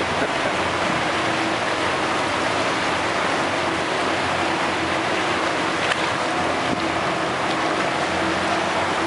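Motor water taxi under way: a steady engine hum beneath the rush and splash of its wake water along the hull.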